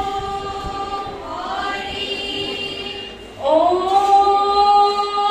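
Group of young women singing Diha Naam, Assamese devotional group chanting, in long held notes. The voices swell louder about three and a half seconds in.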